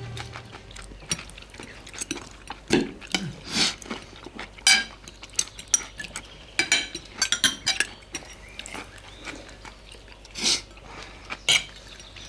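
Cutlery clinking and scraping on plates and glasses at a meal, in short irregular clicks, with someone eating noisily.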